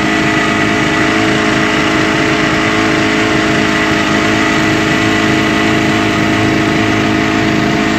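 Outboard motor of an open fishing boat running steadily at cruising speed while the boat is underway.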